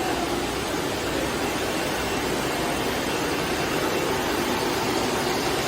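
CNC six-sided multi-boring machine line running: a steady mechanical hum and hiss with no distinct strokes.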